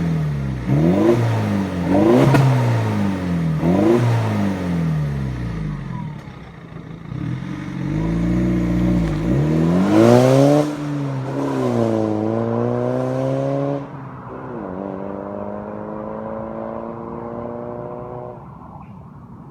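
2003 BMW 320d's four-cylinder turbodiesel, remapped and straight-piped, revved in several quick blips, then pulled hard under acceleration, its note climbing, dropping sharply at a gear change about fourteen seconds in and climbing again as it fades.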